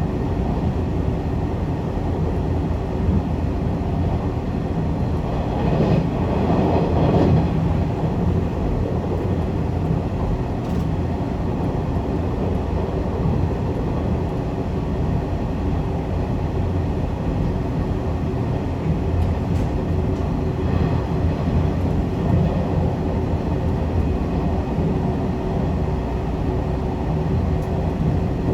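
Zipangu Hiraizumi train running at speed along the line: a steady rumble of wheels on rail and running gear, which swells briefly about six to seven seconds in.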